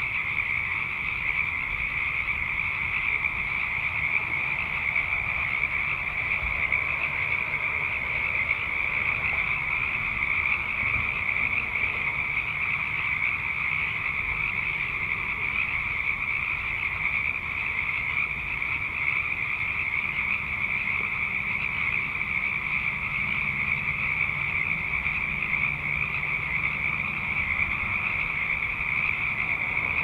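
A dense chorus of many frogs calling at once: a steady, unbroken wall of high-pitched calls that never pauses.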